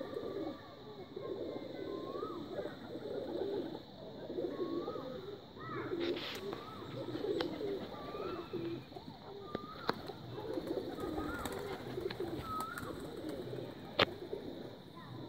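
A flock of domestic pigeons cooing continuously. A short, higher bird call repeats about once a second over it, and there is a single sharp click near the end.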